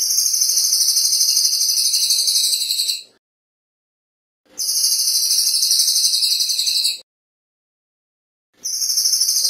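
Crested jay (cililin) giving its fast, high-pitched metallic rattling call in three bouts of about two and a half to three seconds each, separated by short gaps of silence.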